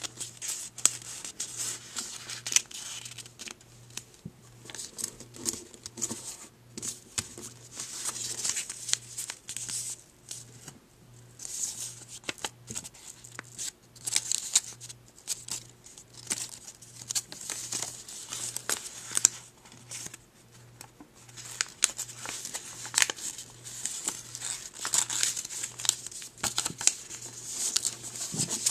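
A sheet of origami paper being folded and creased by hand: irregular rustling and crinkling in short bursts, with crisp scraping as the folds are pressed flat.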